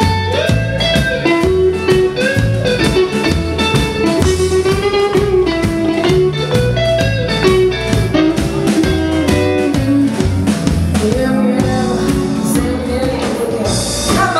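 Live band playing a blues-style dance number: guitar lead over drum kit and double bass, with a steady beat.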